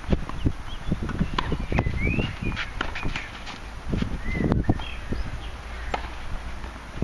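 Doubles tennis rally on a clay court: rackets striking the ball and the ball bouncing, heard as a series of sharp, irregular knocks, with wind rumbling on the microphone.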